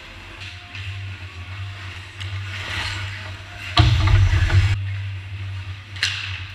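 Ice hockey play over a steady low hum: skates carving and scraping the ice, then a sharp, heavy thud against the rink boards about four seconds in, the loudest sound.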